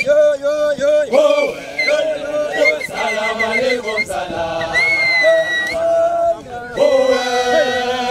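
A group of men's voices singing a chant together, unaccompanied, with held and sliding notes.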